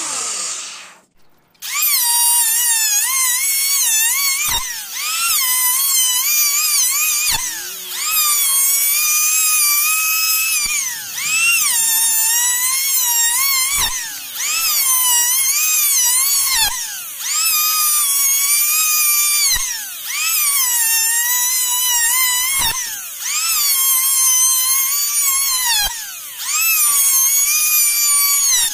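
Electric hand planer shaving a teak beam: the motor's high whine starts about a second and a half in, then sags in pitch as the blades bite on each pass and climbs back between passes, about every three seconds. A short sharp knock falls between several of the passes.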